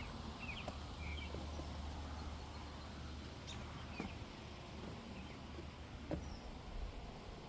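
Outdoor ambience: a few faint bird chirps, mostly in the first couple of seconds, over a low steady rumble, with a few light clicks.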